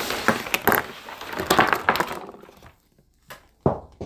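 A cardboard advent calendar box being handled and its molded insert tray pulled out: a dense run of rustling, scraping and small clattering as loose cosmetic products shift inside, then a single knock near the end.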